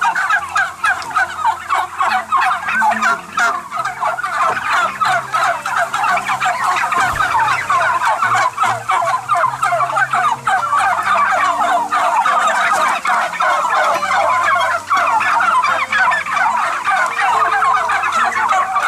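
A large flock of domestic turkeys gobbling, many calls overlapping in a dense, unbroken chorus.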